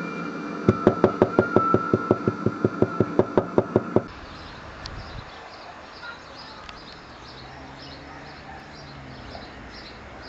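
Music with a fast, even run of sharp knocks, about six a second, over a held tone, cutting off abruptly about four seconds in. Then a quiet outdoor background with faint birds chirping.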